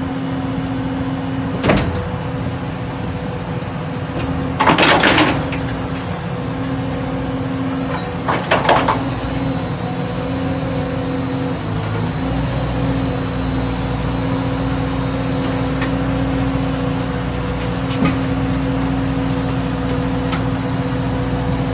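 McElroy Talon 2000 butt fusion rig running with a steady mechanical hum, while its heater plate is lowered between the HDPE pipe ends. Two short, loud noisy bursts come about five and nine seconds in, with a sharp knock near the start and another near the end, and the hum deepens a little past halfway.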